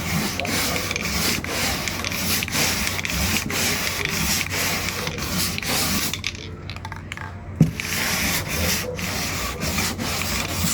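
Hand sanding of Bondo body filler with 80-grit sandpaper wrapped around a spray paint can, in back-and-forth strokes that shape the curve of a wheel well flare. The sanding eases off briefly past the middle, a sharp knock follows, and then the strokes resume.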